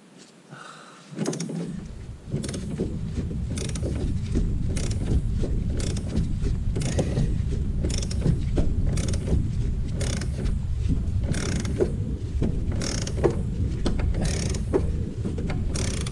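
Hand ratchet and socket running in a bolt that has just caught its thread. A steady rapid ratchet rattle starts about a second and a half in, with a sharper clack about once a second at each stroke of the handle.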